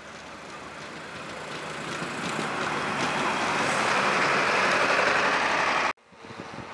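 Vehicle noise growing steadily louder for about five seconds as it draws close, then cut off abruptly, followed by a quieter background noise.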